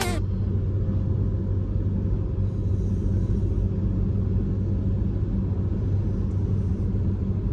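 Steady road and engine rumble heard inside a car's cabin while cruising at highway speed, with a low, even hum.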